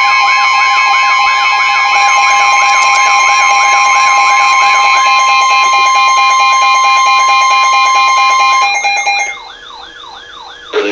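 Emergency Alert System attention signal: a loud, steady two-tone alarm with a warbling siren sweep over it, rising and falling about three times a second. The steady tones cut off about nine seconds in, leaving the quieter warble until a voice message starts at the very end.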